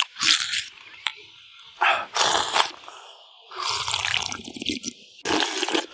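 A man slurping smooth, milky soup straight from the rim of a bowl: a string of noisy sucking slurps with short pauses between, the longest about three and a half seconds in.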